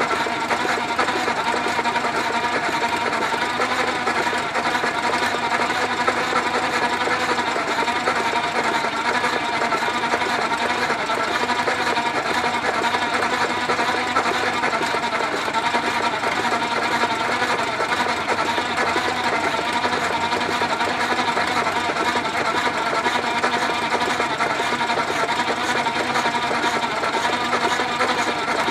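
Steady, fast mechanical clatter of a belt-start rig: a Farmall tractor running and driving, by V-belt and pulleys, the flywheel of a 1.5 hp Sattley hit-and-miss engine. The Sattley is being spun over because it will not stay running on its own.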